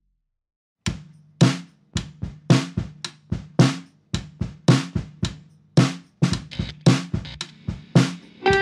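Background music: a drum-kit beat starts about a second in after a brief silence, with sharp hits two to three a second. A pitched instrument sliding upward comes in just at the end.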